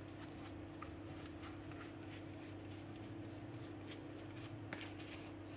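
Tarot cards being shuffled and handled: faint, scattered light card ticks and rubs, over a steady low hum.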